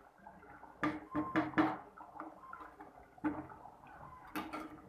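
Thick chicken salna gravy bubbling in a clay pot on the stove, with irregular soft pops and clicks.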